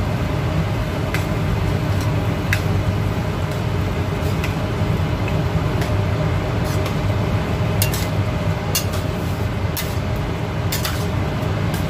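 Steady low rumble of a gas stove burner under a cooking pot, with scattered light clinks of a utensil against the pot.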